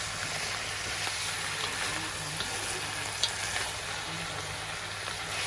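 Food frying and sizzling in a cooking pan as it is stirred, with a few light clicks of the utensil against the pan over a low steady hum.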